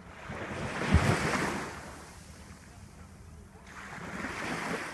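Sea waves washing onto a sandy beach, a wash that swells and fades, then builds again near the end, with wind buffeting the microphone.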